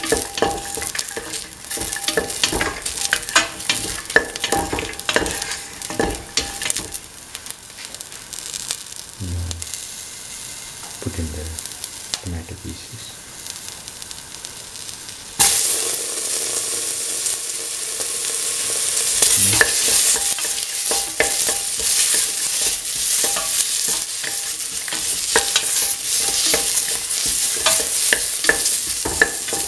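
Onion, garlic and a dried red chilli sizzling in oil in a steel pan, with a spatula stirring and scraping against the metal. About halfway through, the sizzle turns suddenly louder and hissier as chopped tomato goes into the hot oil.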